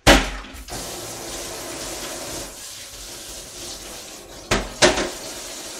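Kitchen tap turned on with a sudden gush, then running steadily into the sink as something is rinsed under the stream, with two louder splashes about four and a half seconds in.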